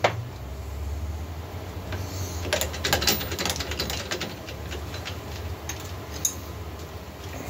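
Metal lathe running with a steady low hum while the tool cuts the squish band of an aftermarket Husqvarna 372XP chainsaw cylinder. A run of clicks and ticks comes about three seconds in, and a single click comes near the end.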